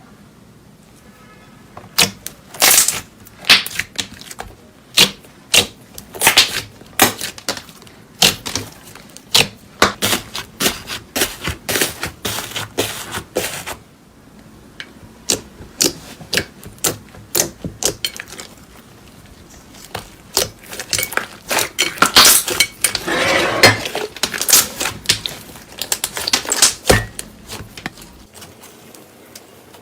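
Slime being squeezed and worked by hand, making a run of sharp sticky clicks and pops with short pauses between. They thicken into a dense crackle about two-thirds of the way through.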